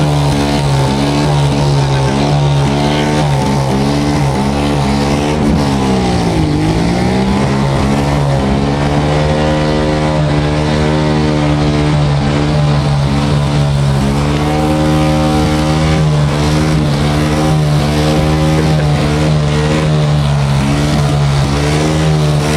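Motorcycle engine held at high revs for a tyre burnout, its pitch nearly steady, dipping briefly and climbing back about six seconds in.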